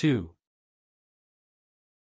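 A narrating voice finishing a word, cut off about a third of a second in, then dead digital silence.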